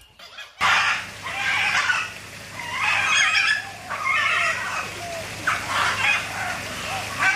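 Birds calling loudly, one call after another about every second, starting abruptly just over half a second in.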